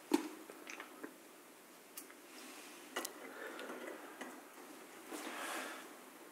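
Small sharp clicks and taps with soft rustling as a little circuit board carrying RCA sockets is handled and fitted onto another board. The loudest click comes right at the start, and a few fainter ones follow over the next few seconds.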